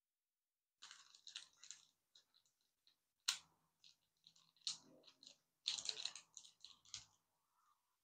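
Small clear plastic bag crinkling in the hands in irregular bursts as blue insulated crimp terminals are picked out of it, with a sharp click about three seconds in.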